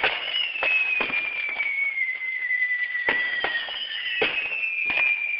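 Fireworks going off: long whistles sliding slowly down in pitch, two at once at times, over a string of sharp cracks and bangs.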